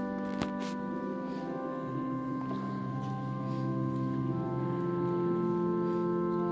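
Organ playing slow, held chords that change about two seconds in and again a little past four seconds. A single sharp click about half a second in.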